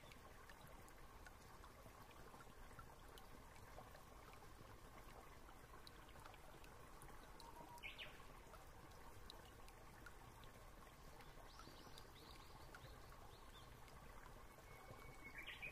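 Near silence: a faint steady hiss of room tone, with a couple of very faint brief sounds.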